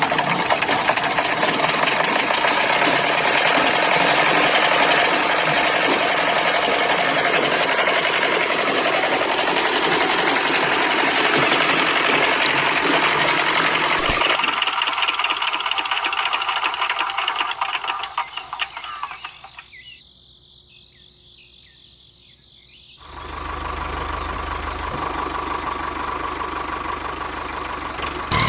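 Small motor of a miniature toy diesel-style engine driving a toy chaff cutter by a belt while grass is fed in by hand, a busy mechanical clatter with a fast regular ticking. About halfway through it fades away, and later a lower steady hum takes over.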